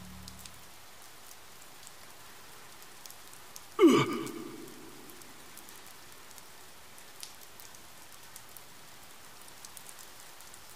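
Steady rain hiss with scattered drip ticks. About four seconds in, one brief loud sound drops steeply in pitch and trails off over about a second.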